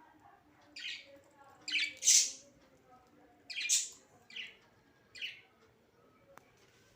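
Pet budgerigars chirping: about six short, high, scratchy calls in a few seconds, the loudest about two seconds in, with soft warbling chatter between them.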